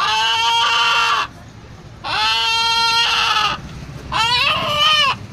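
Rooster, held in a man's hands, giving three long drawn-out calls of about a second each, with short pauses between; the calls are heard as sounding like 'Allah'.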